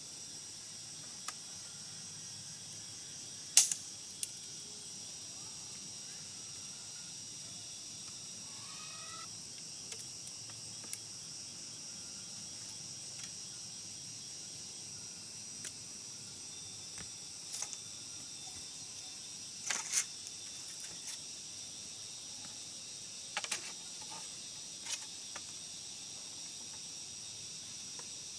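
A steady, high insect chorus, with scattered sharp knocks and taps as bamboo poles are handled and set on a pole frame. The loudest knock comes a few seconds in.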